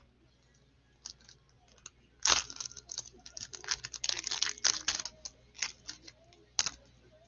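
Crinkling and crackling of an Optic basketball card pack's wrapper being torn open and pulled apart, then the cards slid out and handled. It is a dense run of sharp clicks that starts about two seconds in with one loud snap and stops near the end.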